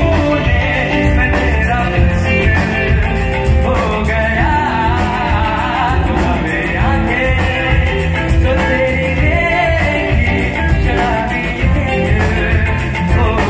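Live band music: a singer with backing from electric guitar, keyboards and a steady beat, played over a loud PA.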